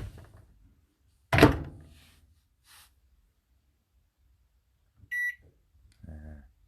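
Kenwood K25MSS11 microwave's door clicking and then shutting with a loud thunk, followed a few seconds later by one short, high keypad beep.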